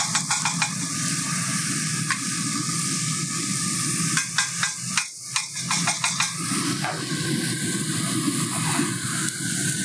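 Loose Italian sausage sizzling in a very hot cast-iron Dutch oven, with a steady hiss. A wooden spatula scrapes and taps against the pan as it breaks up the meat, in quick clusters near the start and again around the middle.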